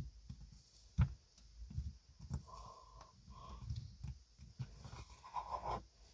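Hands handling cloud slime: soft pressing and squishing with scattered thumps and clicks, a louder thump about a second in, and a few short pops.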